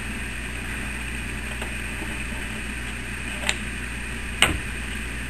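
A steady mechanical hum with two sharp clicks late on, under a second apart, the second louder.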